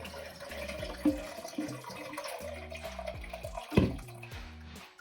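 Leftover water trickling and dripping out of a toilet tank's opening after a part is pulled out, with a knock about a second in and another near four seconds.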